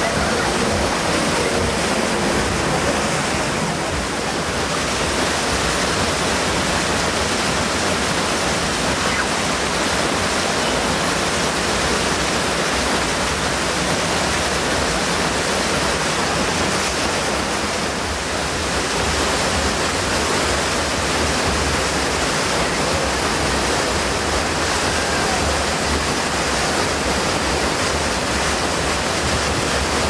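Steady rush of white water churning and pouring through the open channel of a fairground river rafting ride.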